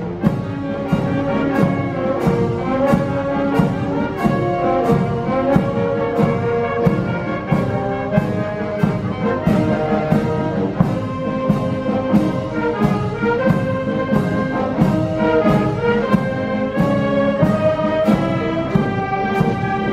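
Alpini band (fanfara) of brass, saxophones and clarinets playing a piece together, with a steady beat of about two strokes a second under the held brass notes.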